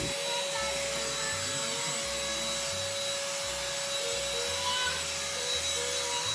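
Handheld cordless vacuum cleaner running steadily: an even motor whine over a rushing hiss.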